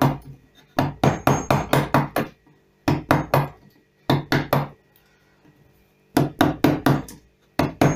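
A carving mallet striking the handle of a gouge that cuts into lime wood, in quick runs of four to seven sharp knocks with short pauses between them.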